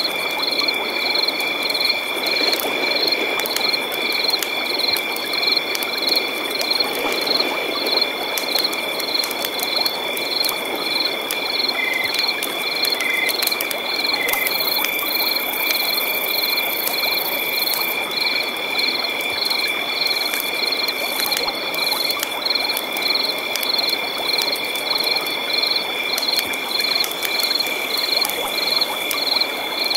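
Night chorus of frogs and insects: two steady high trills and a regular pulsing chirp repeating a little under twice a second, over a steady hiss of flowing river water. A very high hiss joins for a few seconds about halfway.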